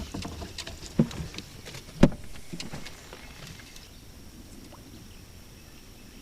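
Knocks and handling noises in a small fishing boat: a few light clicks, then two sharp knocks about a second apart, the second one the loudest. After that, a quieter steady background with a faint, high, steady tone.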